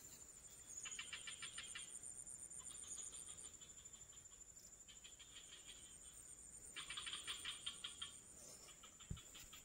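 Faint insect chorus: a steady, very high-pitched drone, with short bouts of rapid pulsed trills coming and going every second or two. A soft low thump near the end.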